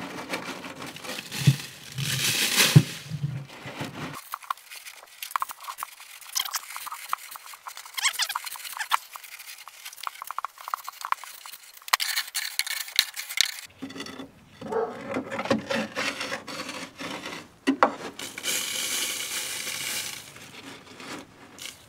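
Gloved hands scraping and digging loose rust scale out of a rusted-through pocket in a steel dump truck bed, with many small crackling, rustling clicks as the flakes break up and fall.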